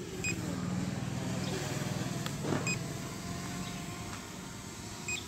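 Steady hum of an SJRC F11s quadcopter's brushless motors and 7035 propellers as it flies in fast overhead on return-to-home, with three short faint beeps.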